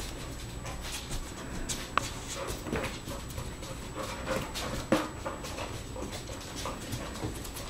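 Goldendoodle puppies whimpering softly and panting as they move about, with scattered light clicks and taps.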